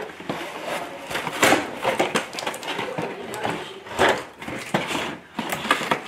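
Cardboard box and packaging rustling, scraping and knocking as a toy fire truck is pulled out of its box, with louder handling noises about a second and a half in and again about four seconds in.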